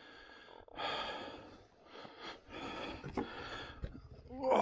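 A man breathing hard and out of breath from exertion: two long, heavy breaths.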